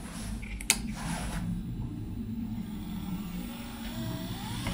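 Car wiper motor running with a low hum as it drives the vise. A sharp click comes about two-thirds of a second in, and a faint whine rises in pitch near the end.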